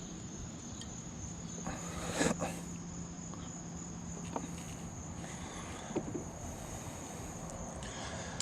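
Crickets chirring in a steady high-pitched evening chorus, with a sharp knock about two seconds in and a few faint clicks later.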